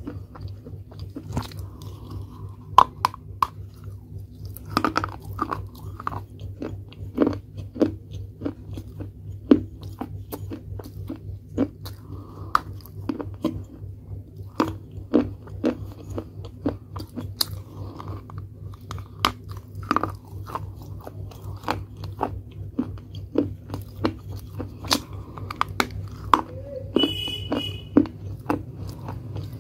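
Crisp crunches and chewing as pieces of a baked clay pot are bitten off and chewed close to the microphone, with many sharp cracks in irregular succession. A steady low hum runs underneath.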